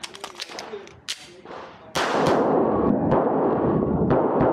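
A few sharp clicks as a magazine is seated in a semi-automatic pistol. From about two seconds in comes a string of pistol shots whose echoes run together into a continuous loud wash.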